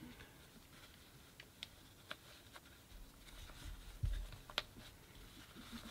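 Faint sounds of a knife box being opened and handled: scattered light clicks and taps, with a soft low thump about four seconds in followed by a sharper click.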